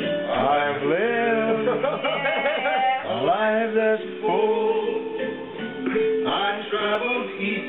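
A dog howling along to music in long rising, wavering howls, three times, over steady held chords.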